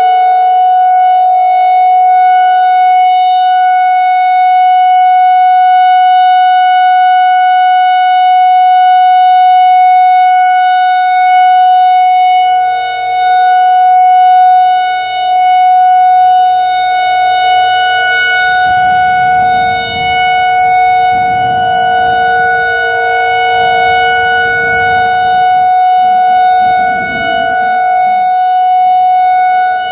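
Whelen WPS-4004 analog electronic outdoor warning siren sounding a loud, steady tone during its monthly test, the pitch holding level with no rise or fall. A low rumbling noise joins in about two-thirds of the way through.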